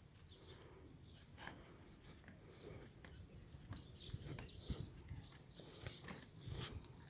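Faint chirping of small birds, many short high calls, with a few dull low thumps in the second half.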